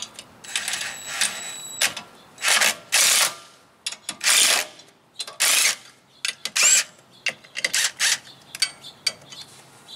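Cordless impact hammering in a series of short bursts, each about half a second, as it drives M8 bolts into the brake rotor's threaded holes to jack the stuck rotor off the hub.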